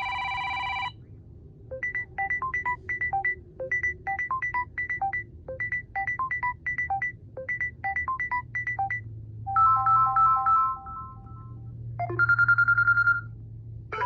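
Samsung Galaxy A01 ringtones playing one after another. A short chord cuts off, then a quick electronic pattern of high beeps over a low note repeats four times, followed by two brief held electronic tones.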